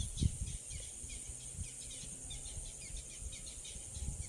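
Swamp-side insect chorus: a steady high buzz with rapid, evenly repeated chirps, and a brief low thump just after the start.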